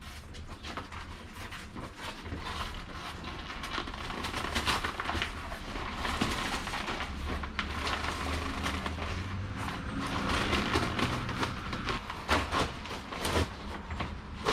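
Old headliner fabric being torn and scraped off its foam backing, a continuous rough scratching made of many short strokes that grows louder after the first few seconds; the old glue is still holding the fabric to the foam.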